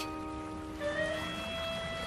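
Soft background score music: a few sustained notes held over a faint hiss, with a new set of held notes coming in about a second in.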